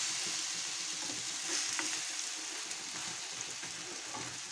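Semolina chilla frying in oil in a non-stick pan, a steady sizzle just after the pancake has been flipped.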